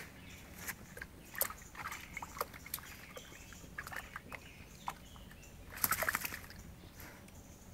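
A small dog splashing in a shallow puddle and pushing through wet grass: scattered small splashes and rustles, with the loudest burst about six seconds in.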